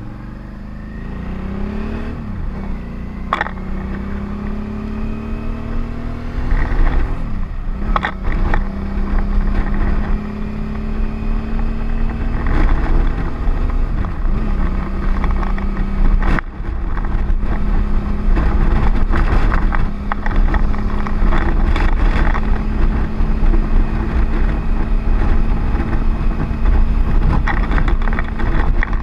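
Motorcycle engine running under way, its pitch rising as the bike accelerates and dropping back at a few gear changes. Heavy wind rush on the helmet-mounted microphone grows louder as the speed builds.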